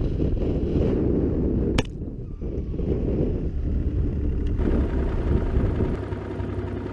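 Snowmobile engine running under wind buffeting the microphone, a steady low rumble with a sharp click about two seconds in.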